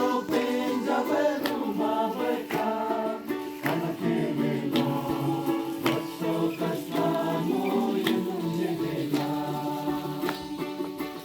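A group of young voices singing a gospel song together, with a strummed ukulele keeping a steady beat of about one strum a second.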